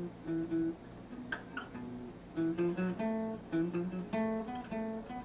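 Acoustic guitar played fingerstyle: a tune of single picked notes over lower bass notes.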